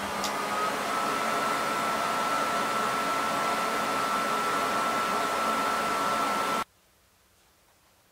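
Fume extractor's fan running with a steady rushing hiss and a thin whine that steps up slightly in pitch about half a second in, just after a small click as its remote is pressed. The sound cuts off abruptly about six and a half seconds in, leaving only faint room tone.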